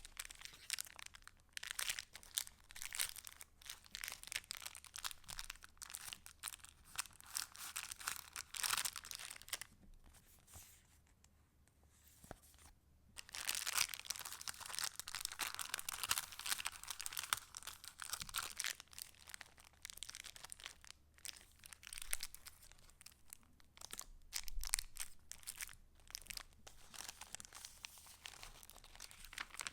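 Paper pages of a handmade junk journal being handled and turned: a continuous crinkling, rustling paper sound with many small crackles, easing off for a couple of seconds about a third of the way in before picking up again.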